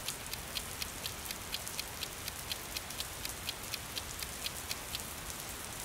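Toaster oven's wind-up mechanical timer ticking steadily, about four ticks a second, over a steady hiss. The ticks fade about five seconds in.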